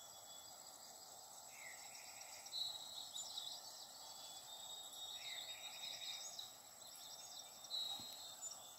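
Faint bird chirping in two short bouts over a steady background hiss and a thin high whine, with a single soft click near the end.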